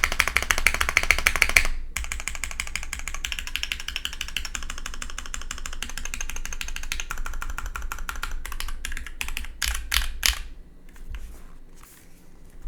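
Fast typing on a gasket-mounted 65% custom mechanical keyboard with an aluminium plate, lubed and filmed Cherry MX1A Nixie switches and GMK Lux keycaps: a rapid, steady stream of keystrokes, loudest in the first couple of seconds. Near the end it slows to a few separate, heavier strokes, then thins out.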